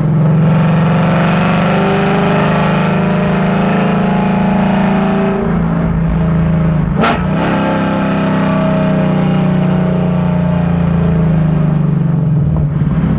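Ford Mustang GT's 5.0 V8 exhaust pulling under acceleration, heard from a microphone under the rear bumper. The engine note rises, changes about five to seven seconds in with a brief sharp crack, rises again, then eases off near the end.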